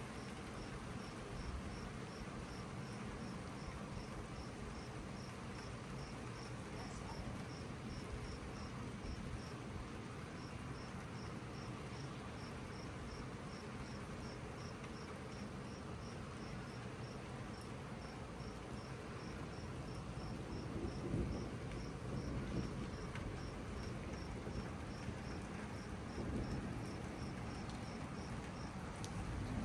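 A cricket chirping in a steady high pulse of about three chirps a second over a steady hiss. Low rumbles of thunder swell up about two-thirds of the way in and again near the end.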